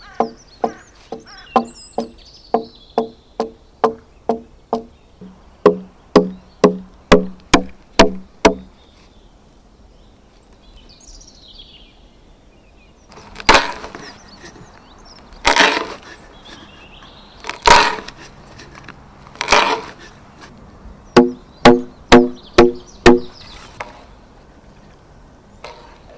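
Axe chopping into a log as it is hewn: a quick, even row of short, ringing strikes about two a second, then four heavier chops about two seconds apart, then another quick row of strikes.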